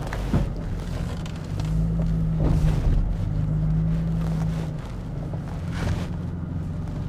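The 2019 Toyota Tacoma TRD Pro's 3.5-litre V6 engine runs at low revs in four-low while crawling over rocks. It grows louder and steadier for a few seconds in the middle as it works harder, and a few brief knocks sound over it.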